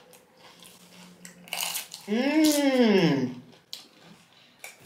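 Close mouth sounds of eating tortilla chips: a few faint crunches and clicks, and one long drawn-out "mmm" of enjoyment about two seconds in, rising then falling in pitch.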